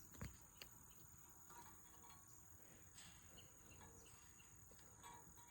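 Near silence with a faint, steady high-pitched chirring of crickets, and a few faint ticks.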